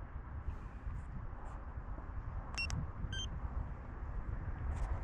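Garmin Force Kraken trolling motor running at full turbo setting: a low, steady rumble of thrust and water as the boat takes off. Two short electronic beeps come about two and a half and three seconds in.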